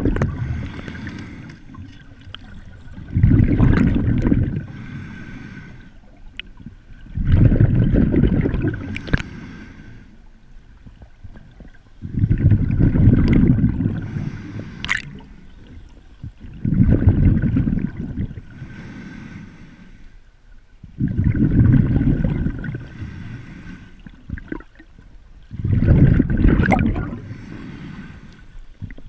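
Scuba regulator exhaust heard underwater: bursts of exhaled bubbles rumbling out in a steady breathing rhythm, six times, about every four to five seconds, with a quieter hiss between breaths.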